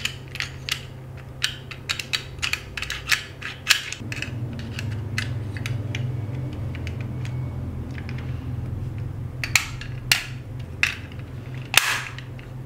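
Small steel lock parts clicking and tapping as the lock case and its cover plate are handled and fitted together: a quick run of sharp clicks in the first four seconds, then a few separate clicks near the end, over a low steady hum that grows louder about four seconds in.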